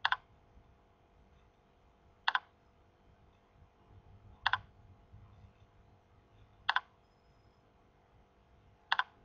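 Computer keyboard keystrokes: five single key clicks spaced evenly about two seconds apart, each a quick double click of key press and release, as a word is typed one letter at a time.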